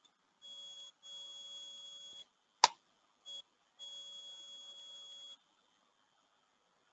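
A faint high-pitched electronic whine, with a lower hum beneath it, that cuts in and out in stretches of about half a second to a second and a half. A single sharp mouse click comes about two and a half seconds in.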